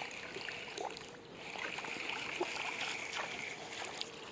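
Lake water lapping and trickling against a small fishing boat, with small splashy ticks and a steady hiss in the middle.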